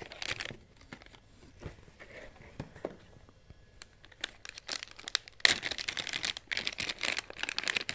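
Plastic anti-static (ESD) bag being handled and opened. Sparse rustles and taps come first, then dense crinkling of the plastic from just past the halfway point to the end.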